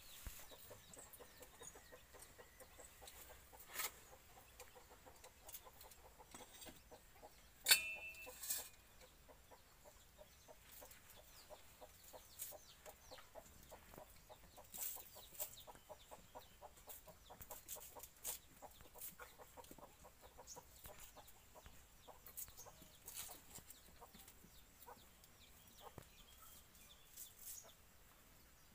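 Chickens clucking softly and intermittently, with scattered small handling clicks and one sharp knock about eight seconds in.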